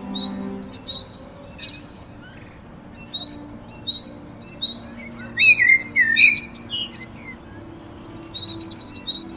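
Several songbirds singing: a short high chirp repeated every second or so, a brief high trill, and a burst of quick whistled twittering in the middle, which is the loudest part.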